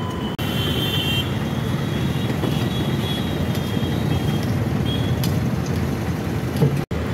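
Steady street traffic noise: a continuous low rumble of passing road vehicles, broken by two brief cuts in the audio, one just after the start and one near the end.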